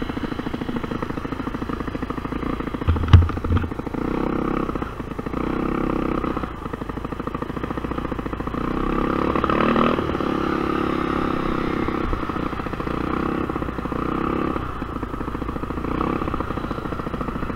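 GY6 150cc single-cylinder four-stroke engine of a Honda Ruckus scooter running under way, its note swelling louder several times as the throttle opens and eases off. A single sharp thump about three seconds in.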